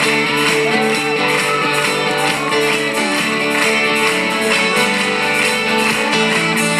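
A live band playing an instrumental passage of a pop-rock song, with strummed guitar to the fore.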